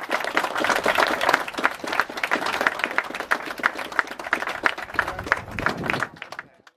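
A small group of people applauding, with dense, irregular hand claps that fade out near the end.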